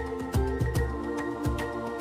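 Background music: sustained pad-like tones over a steady, regular beat of low drum hits.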